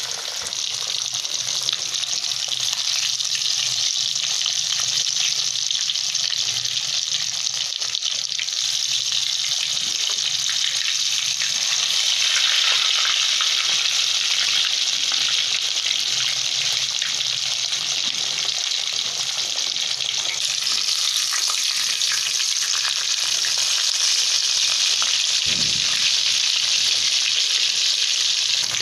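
Spice-coated fish fillet sizzling as it fries in hot oil in a steel karahi, a steady hissing sizzle that grows louder about halfway through. A brief low thump near the end.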